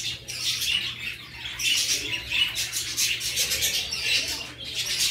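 Many small birds chirping and twittering at once, a dense high chatter of short calls that never stops.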